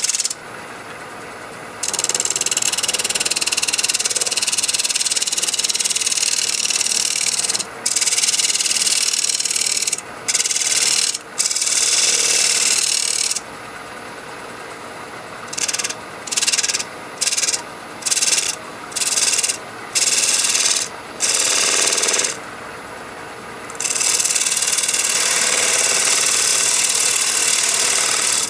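Handheld air-powered rotary sander worked against a spinning poplar turning on a wood lathe, switched on and off: long runs of hissing and rubbing, then about six short bursts in quick succession past the middle, then another long run near the end, with the lathe running more quietly in the gaps. The sander is grinding across a hardened drip of super glue, the hardest thing on the piece.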